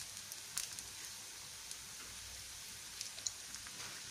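Patishapta crepe batter sizzling gently in a nonstick frying pan, a soft steady hiss, with a few light taps of a plastic spoon spreading the coconut filling.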